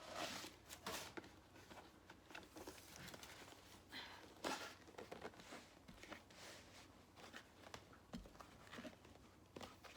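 Faint, intermittent rustling and crinkling of packing paper being pulled out of a pair of boots, with small knocks from the boots being handled.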